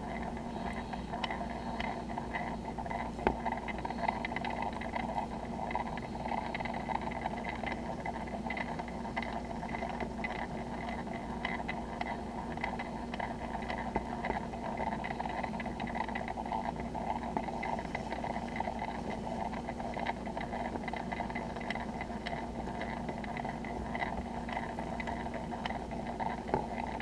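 Steady mechanical hum with a constant low tone and scattered faint ticks.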